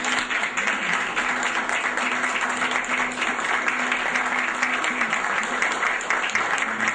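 A group applauding: many people clapping steadily.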